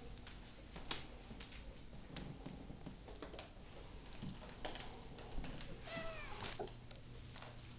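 A domestic cat meows once, a short call that bends in pitch, about six seconds in. A few sharp clicks come earlier, about a second in.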